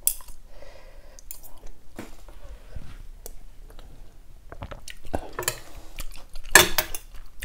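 Close-miked chewing and slurping of rice-noodle soup eaten from a spoon, with a few clicks of a spoon and fork against the bowl; the loudest slurping bursts come near the end.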